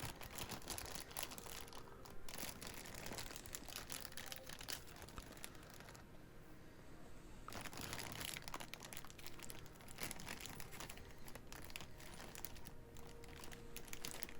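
Plastic bag crinkling and rustling as a soldering iron is worked out of it, with a brief lull about halfway through.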